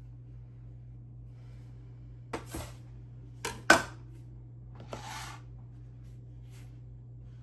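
A handful of sharp knocks and clatters of hard objects being handled, the loudest about three and a half seconds in, with two short scraping sounds, over a steady low hum.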